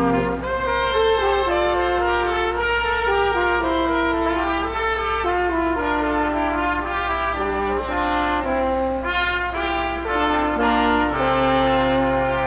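Brass ensemble playing Christmas music: several held notes sounding together in chords, moving from chord to chord.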